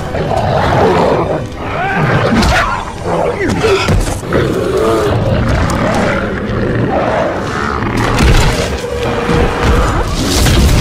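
Film fight soundtrack: monster roars and snarls over dramatic music and a heavy low rumble, with several sudden heavy impacts, the loudest near the end.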